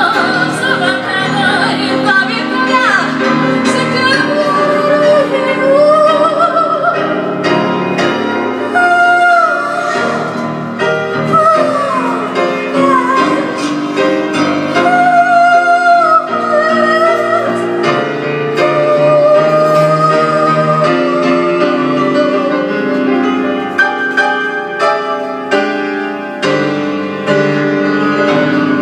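A woman singing while accompanying herself on a grand piano, her voice carrying a wavering, sliding melody over sustained piano chords.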